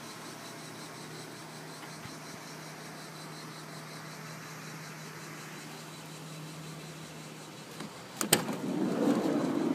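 Nissan Elgrand E50 minivan running with a steady low hum. About eight seconds in, a sharp click of the side sliding door's latch is followed by the sliding door rumbling open along its track for about two seconds.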